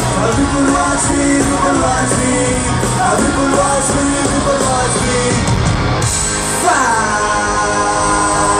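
Live rock band playing loud, with electric guitar, drums and vocals. About six seconds in the drums and bass drop out, and after one sharp hit a held chord rings on, sliding slowly down in pitch.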